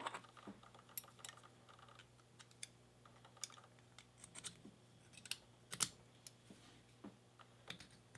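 Scattered faint clicks and small metallic taps of a key being worked into an old Slaymaker pin-tumbler padlock and turning its plug. The clearest clicks come right at the start and again about six seconds in.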